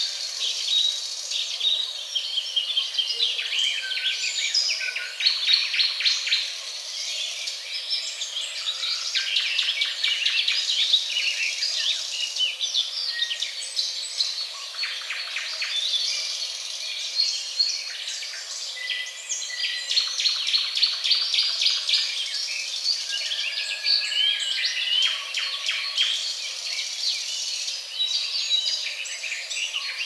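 Several songbirds singing at once: a dense chorus of quick chirps, rapid trills and short whistles that overlap without a break.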